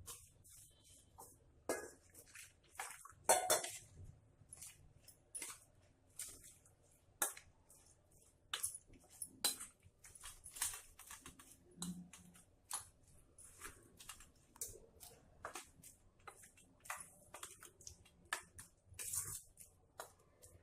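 A spoon scraping and clinking against a bowl in quick, irregular strokes, mixing semolina (suji) batter.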